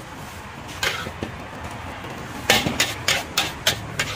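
Long-handled metal spatula clanking and scraping against a wok and a steel food box as fried rice is scooped out and tipped in. One clack about a second in, then a quick run of about six sharp clacks in the second half.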